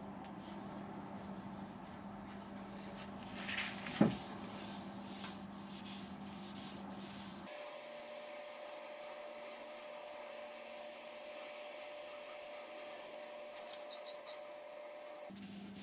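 Cloth rubbing wipe-on polyurethane finish onto the outside of a wooden bowl on a wood lathe: a steady soft rubbing over a faint steady hum, with one brief knock about four seconds in.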